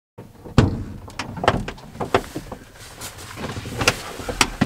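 Knocks and clunks in a Peugeot Boxer van's cab as someone climbs into the driver's seat, with a louder thump about half a second in and a run of smaller knocks after it.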